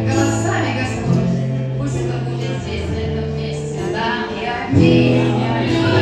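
A woman singing a Christian worship song into a microphone, accompanying herself on acoustic guitar, with held low notes underneath that change every second or so.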